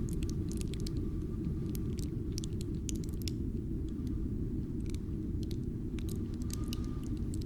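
Cold mountain wind rumbling low and steady, with scattered sharp crackles and ticks of frost or ice. A faint high whistle of wind comes in near the end.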